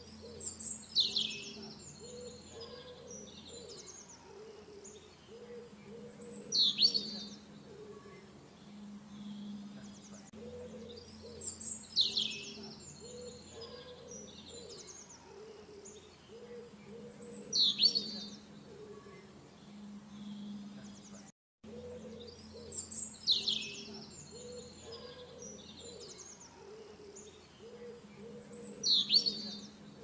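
Birdsong from a nature-sounds track: a bird's call, a quick pair of high descending notes, recurs about every five to six seconds over a low steady hum and fainter low warbling. All sound cuts out for a moment about two-thirds of the way through.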